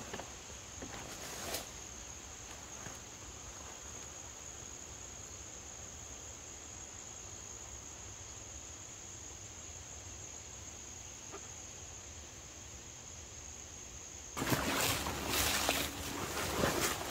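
Quiet background with a faint, steady, high-pitched whine. About fourteen seconds in, a loud, irregular rustling and scraping starts and carries on to the end.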